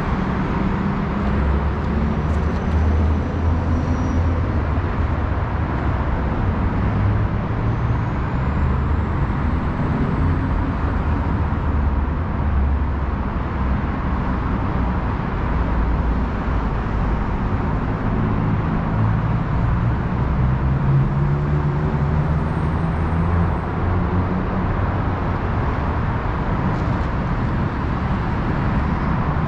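Steady road-traffic rumble from the freeway bridge overhead and the surrounding roads.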